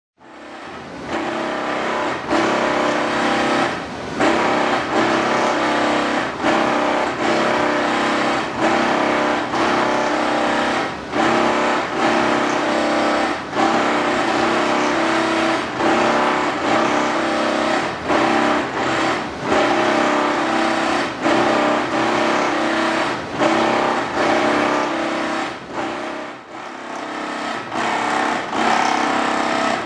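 Electric bench riveting machine running steadily as rivets are set in wooden knife handles, its sound dipping briefly every second or two.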